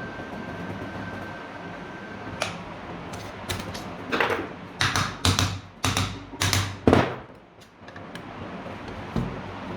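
A steady hum with a thin high tone cuts off with a click about two and a half seconds in, followed by a run of six or seven loud, hard knocks and clatters over about three seconds.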